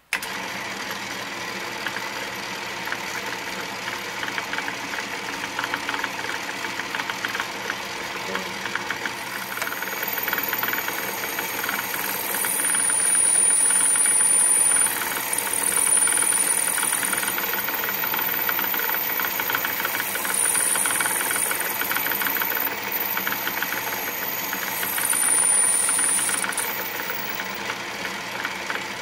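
Atlas lathe running and spinning a drill bit that drills into a brass winding-key piece, with brass chips coming off. The machine noise is steady, and a thin high whine comes and goes while the bit cuts, from about nine seconds in until near the end, loudest around twelve to fifteen seconds in.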